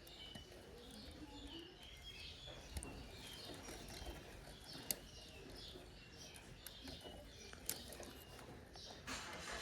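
Birds chirping faintly and repeatedly in the background, with a few faint sharp clicks.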